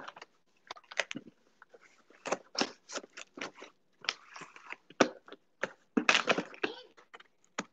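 Cardboard shipping box being handled and shifted on a granite countertop: irregular crackles, scrapes and light knocks, thickest about two and a half and six seconds in.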